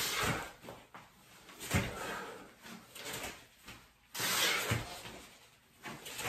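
A person doing push-ups: a dull thud on the floor about every second and a half, with loud, hard breaths between them.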